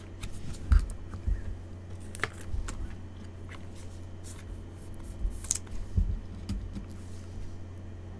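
Trading cards and clear plastic toploaders handled by gloved hands: scattered light clicks, plastic rustles and soft taps on the table, with one brief sliding hiss a little past halfway. A steady low hum runs underneath.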